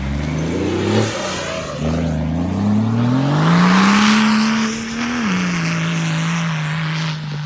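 The swapped-in BMW M57 straight-six turbodiesel of a Nissan Patrol, tuned to about 320 hp, revving hard as the truck accelerates away. The revs climb, drop at a gear change about a second in, climb again and hold high, then fall back to a steady lower note about five seconds in.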